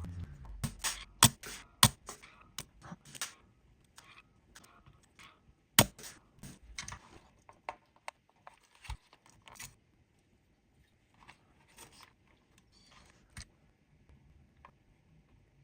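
Irregular clicks, clinks and scrapes of small hand tools and metal parts being handled while an amplifier circuit board is taken apart, thinning out and growing fainter in the second half.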